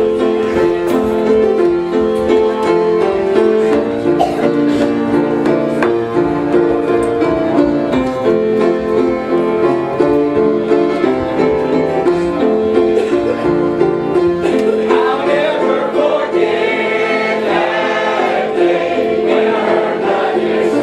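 A gospel hymn played live on instruments. A congregation joins in singing about two-thirds of the way through.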